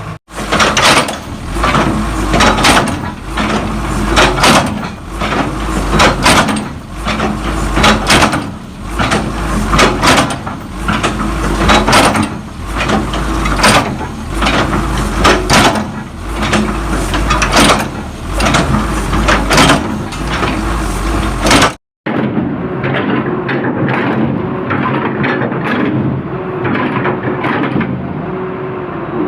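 Repeated heavy blows on metal, about one to two a second, over a low engine hum, as the blades of a JCB excavator bucket are struck to work them loose. About three-quarters of the way through it cuts to a steadier engine hum with lighter knocks.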